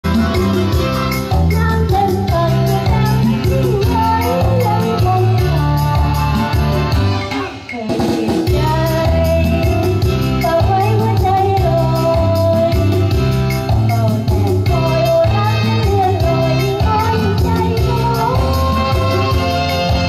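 Background music with a steady bass line and a wavering melody, dropping away briefly about seven and a half seconds in before carrying on.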